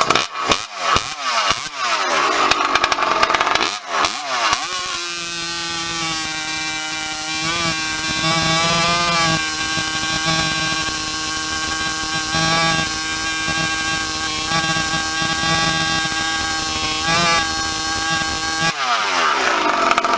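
Farmertec G372 two-stroke chainsaw with a tuned expansion-chamber exhaust pipe, blipped through a few quick revs, then held at full throttle through a cut for about fourteen seconds at a steady high pitch, and let off near the end, revving down. Judged afterwards as pretty close but needing a little carb adjustment maybe.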